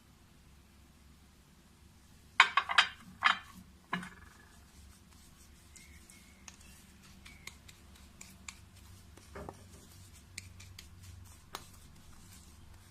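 A spoon stirring and scraping a thick paste of ground cumin and olive oil in a small dish: a few loud scraping strokes about two and a half to four seconds in, then light taps and clicks.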